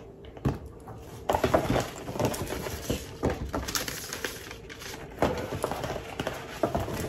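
Paper shopping bag and paper rustling and crinkling irregularly as items are lifted out of the bag and a folded paper is handled.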